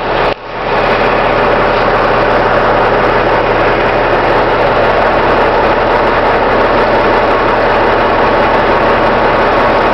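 Garbage truck engine idling with a steady, loud drone, picked up close by a camera mounted on the truck's body.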